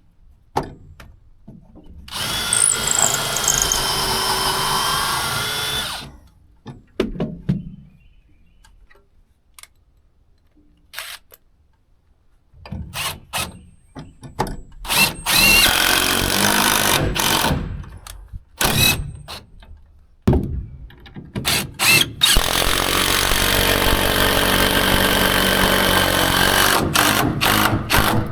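Power drill running in three runs of several seconds each, with clicks and knocks between them: drilling the bolt holes for a winch mount.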